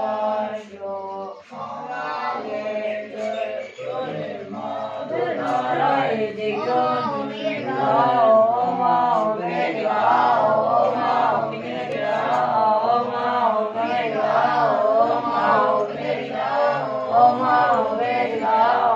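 A group of children and teenagers chanting prayers together in unison, a continuous recitation in wavering, many-voiced lines.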